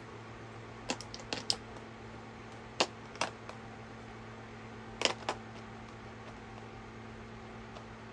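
Light clicks and taps of small paint tubes being set back into a plastic tray, in small clusters about a second in, around three seconds and about five seconds in, over a steady low hum.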